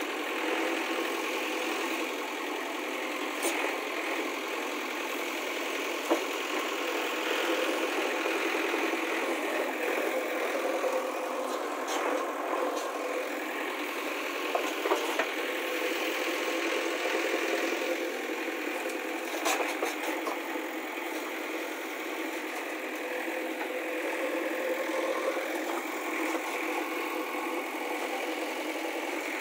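Diesel engine of a JCB backhoe loader running steadily under load while the backhoe digs soil. A few sharp knocks stand out along the way.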